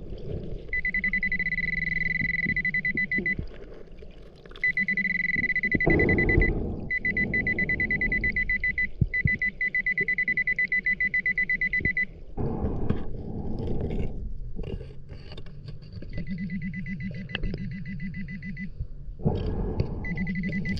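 Underwater metal detector giving a rapid pulsing beep at one steady high pitch, in several stretches of one to five seconds, the signal that a metal target lies under the coil. Between the beeps come bursts of low, muffled rushing noise.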